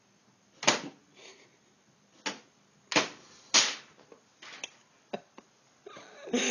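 Irregular sharp clacks and knocks, about ten of them, the loudest about a second in and around three seconds in.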